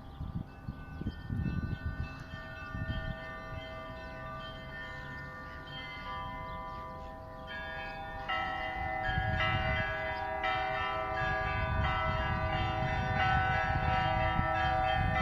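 Russian church bells ringing a peal, many bells sounding together with long, overlapping ringing. About eight seconds in, higher bells join with quick repeated strikes and the peal grows louder. There are a few low thuds in the first three seconds.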